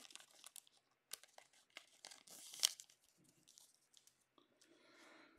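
Soft crinkling and rustling of a clear plastic card sleeve and trading cards being handled, with scattered sharp clicks and a brief louder crinkle about two and a half seconds in.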